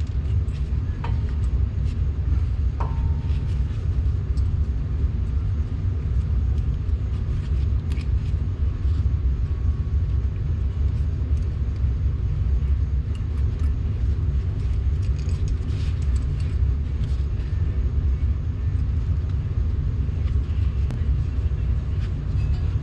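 A steady low rumble throughout, with a few light metallic clinks and ticks from brake pad hardware and tools being handled, two of them ringing briefly early on.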